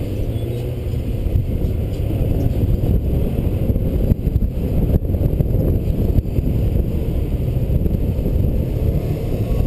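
Honda PCX125 scooter idling with a steady low rumble, mixed with wind noise on the helmet-mounted microphone.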